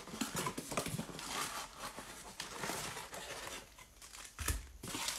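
Cardboard trading-card blaster box being torn open, with crinkling as the wrapped packs are pulled out. A thump comes about four and a half seconds in.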